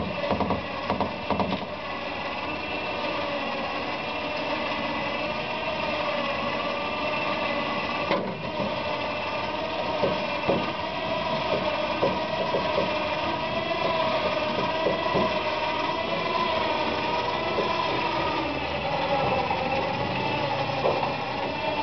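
A small motor running steadily with a slightly wavering whine, with a few light clicks and knocks around the middle.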